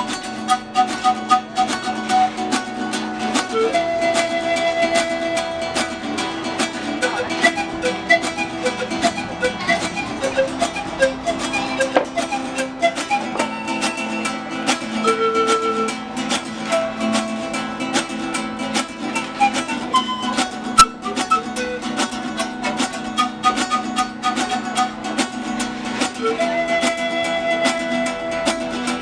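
Acoustic guitar music: quick, even strumming under a plucked melody line.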